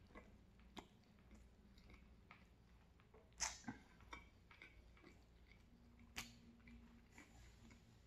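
Faint close-up chewing of a mouthful of pizza, with scattered soft wet mouth clicks; a sharper click comes about three and a half seconds in and another near six seconds.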